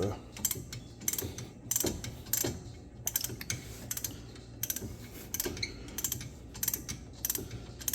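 Ratchet clicking in short runs as it is swung back and forth, loosening a T45 Torx brake caliper guide bolt until it comes free.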